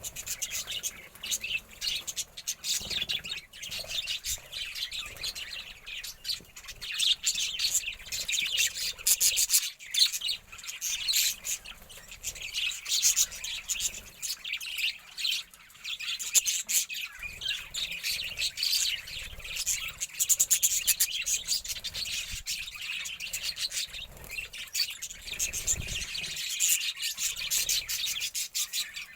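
A flock of budgerigars chirping and chattering continuously, with many quick, high warbling calls and occasional squawks.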